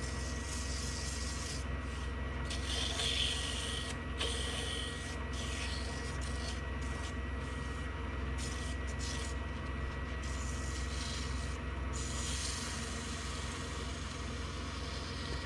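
Sandpaper rubbing on an epoxy and black walnut duck call blank spinning on a wood lathe, with the lathe motor humming steadily underneath. The sanding hiss swells and fades as the paper is pressed on and eased off.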